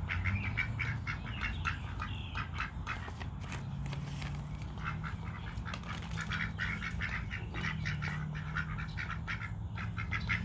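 Ducks quacking in a rapid, continuous chatter of short calls, in several quick runs.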